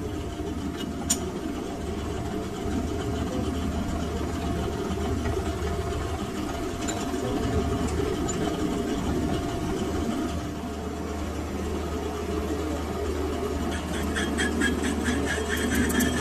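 Metal-turning engine lathe running with a steady low hum and a faint steady whine, with a single sharp click about a second in. Near the end the chuck spins up and a fast, fine ticking rattle sets in.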